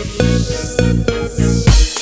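Background music with a steady beat and heavy bass, electronic in style, with a rising swoosh building toward the end.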